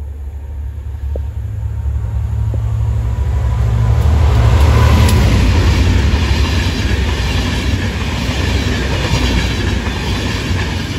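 A Class 67 diesel locomotive passes at speed hauling a rake of passenger coaches. The engine's low drone builds to its loudest about four to five seconds in as the locomotive goes by, then gives way to the rush and rhythmic clatter of the coaches' wheels on the rails.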